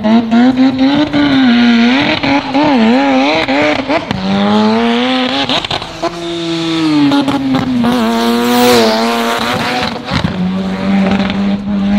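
Drag-racing car's engine revving hard, its pitch wavering up and down, then climbing in repeated rising sweeps as it runs, with tyre squeal; it holds a steadier note near the end.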